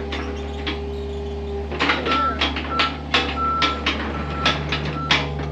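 Heavy equipment engine idling steadily, with scattered clicks and knocks. From about two seconds in, a string of short high-pitched beeps at one pitch, unevenly spaced, runs for about three seconds.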